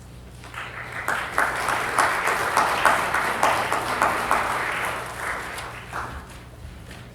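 Audience clapping, swelling about half a second in and dying away near the end.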